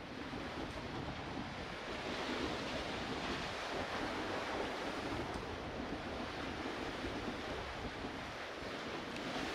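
Sea waves washing against a concrete tetrapod breakwater, a steady rush that swells a little a couple of seconds in, with wind buffeting the microphone.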